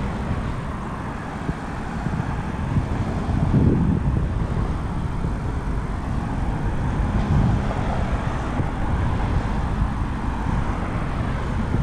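Wind buffeting the camera's microphone: a steady low rumble with gusts swelling about four seconds in and again around seven seconds.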